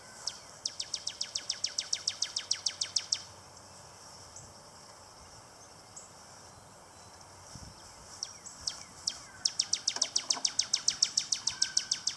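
A songbird singing a rapid, dry trill of evenly spaced high chirps, about seven or eight a second and growing louder through each run, sung twice with a long gap between.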